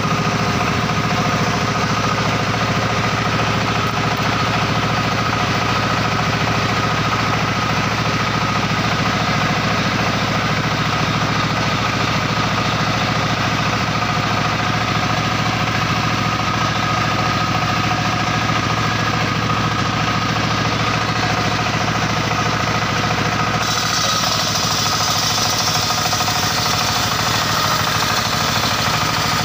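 Circular sawmill machine running steadily with an engine-like drone. A little over three-quarters of the way through, the sound changes and a higher hiss joins in.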